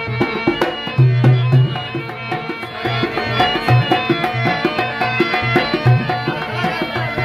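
Instrumental passage of a Rajasthani Manganiyar folk bhajan: held, stepping melody notes over a steady hand-drum rhythm with light clicks.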